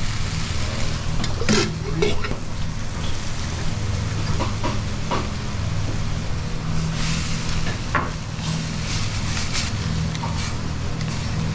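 Champon broth sizzling and simmering in a steel wok over a gas flame as tare and milk are ladled in and the noodles are stirred with chopsticks. A few sharp knocks of ladle and chopsticks against the wok ring out over a steady low hum.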